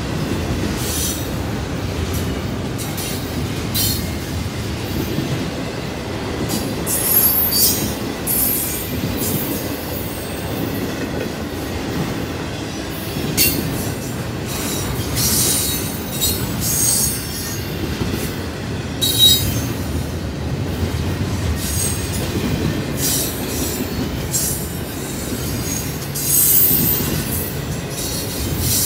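Double-stack intermodal freight train cars rolling past: a steady low rumble of wheels on rail. High-pitched wheel squeals and screeches come and go several times.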